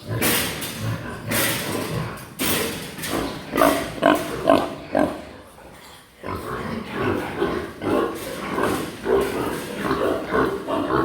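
Several Hampshire pigs grunting, with harsher noisy cries in the first couple of seconds. The short grunts come in quick succession, with a brief lull about six seconds in.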